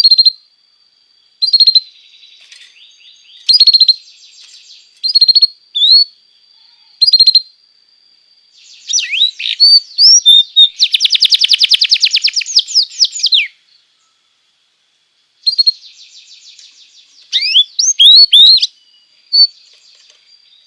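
Domestic canary singing: short phrases of chirps and quick rising whistles broken by pauses, with a long, fast, rolling trill about halfway through.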